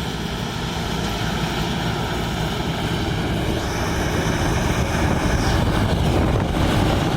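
Pan Charoen Kan Chang 2020 rice combine harvester running steadily under load while harvesting, a dense engine and threshing drone that slowly gets louder. A faint high whine joins for about two seconds midway.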